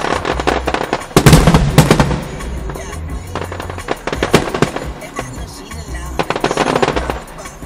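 Fireworks bursting and crackling in rapid clusters, the densest crackle about a second in and again near the end, with hip-hop music's bass thumping underneath.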